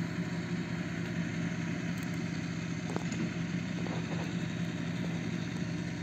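An engine running steadily at idle, a constant low hum that does not rise or fall, with a couple of faint ticks near the middle.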